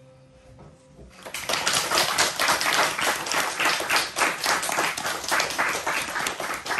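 The last kanklės note fading out, then a small audience applauding, starting about a second in.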